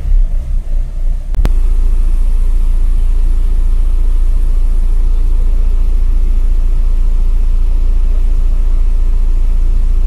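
Renault Duster engine idling with a steady low rumble, uneven for the first second or so, with one sharp click about one and a half seconds in. The engine is running smoothly for now, its intermittent misfire not showing.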